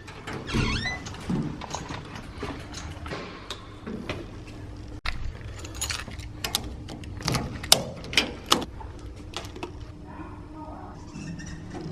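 Irregular sharp clicks, knocks and rattles of objects being handled, with a short rising squeak near the start, over a steady low hum.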